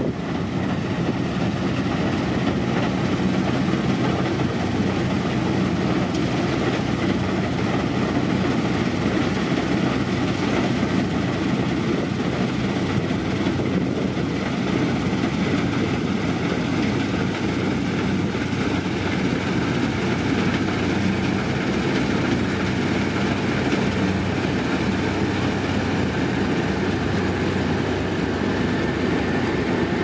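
New Holland combine harvester running steadily while cutting wheat: a constant drone of its engine and the header and threshing machinery.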